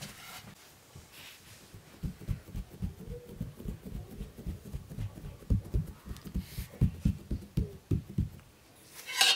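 Soft, irregular low thumps as fingers press and crimp a round of qadmal dough against a metal tray, several a second, with a sharp clack near the end.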